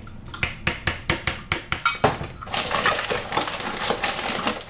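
A plastic measuring cup knocked rapidly against the rim of a plastic mixing bowl to shake out pancake mix, about ten quick taps, followed by a steadier rustling and rattling of the ring of measuring cups as more mix is scooped from the box.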